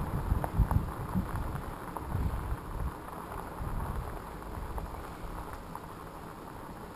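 Bicycle tyres rolling over a gravel trail, with scattered small ticks. The low rumble eases off after the first two or three seconds.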